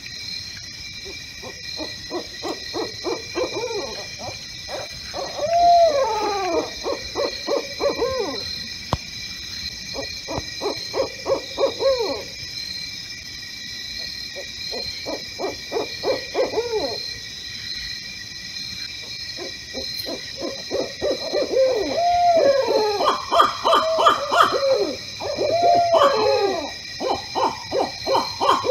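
Barred owls calling at night: bouts of rapid, cackling hoots mixed with drawn-out, arching notes, coming in five bursts separated by short pauses. The last burst is the longest, with several call series overlapping. Faint steady high-pitched tones run underneath.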